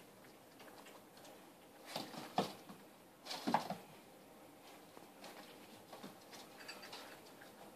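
Boston terrier puppies' paws tapping and pattering on a hardwood floor as they jostle around their food bowls, with a few louder knocks and clatters about two seconds in and again at about three and a half seconds.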